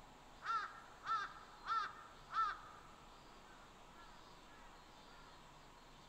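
A crow caws four times in quick, even succession, about a second and a half of calls, then a few much fainter caws follow. Steady soft hiss of mountain forest ambience underneath.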